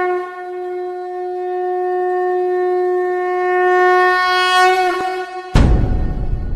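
A single long note blown on a horn, held steady for about five seconds and wavering slightly in pitch just before it stops. It is cut off by a loud drum crash about five and a half seconds in that runs into a drum roll.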